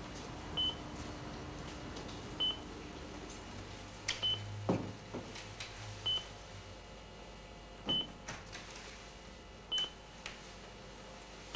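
Hospital patient monitor beeping steadily, one short high beep about every two seconds. A few soft clicks and a knock about halfway through.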